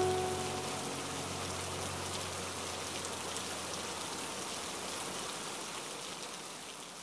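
Steady rain falling, an even hiss, with the last notes of background music dying away in the first second; it fades out near the end.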